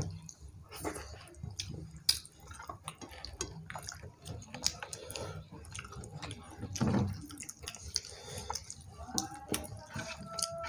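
Close-up eating sounds: fingers mixing soft khichuri on plates and mouths chewing, as a scatter of small wet clicks and smacks. A brief murmur of voice comes near the end.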